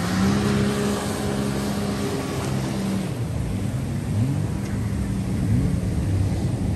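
Jet ski engine running at a steady pitch, then rising and falling in pitch from about three seconds in as the throttle changes, over the rush of water and wind.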